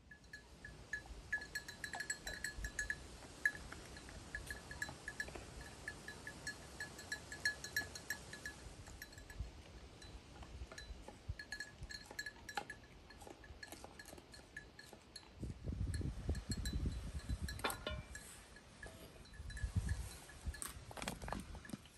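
A small livestock bell clinking irregularly, many quick strokes on one pitch, thickest in the first half and thinning later. A low rumble joins for a couple of seconds about three quarters of the way through.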